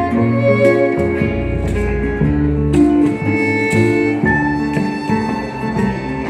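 Live acoustic folk music: a violin bowing a melody over plucked harp and guitar, with a double bass holding low notes underneath.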